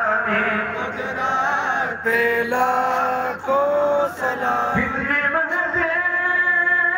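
A man's voice singing an Urdu salam, a devotional salutation to the Prophet, into a microphone. The phrases are slow, with long held notes and short breaks between them.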